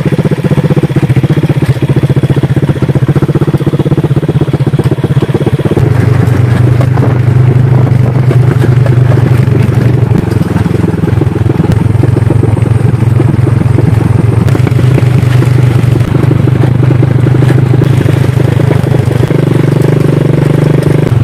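Motorcycle engine running while the bike is ridden, a loud steady pulsing drone. The engine note drops and grows louder about six seconds in, then rises again near the end.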